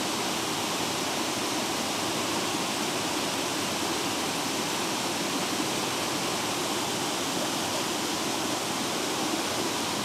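Small waterfall and the shallow stream below it rushing and splashing over rock ledges: a steady, even rush of water.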